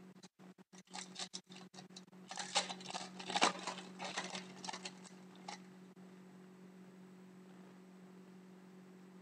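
Foil trading-card pack wrapper crinkling and rustling as it is torn open and the hockey cards are slid out, for about five seconds, then stopping. A low steady electrical hum runs underneath.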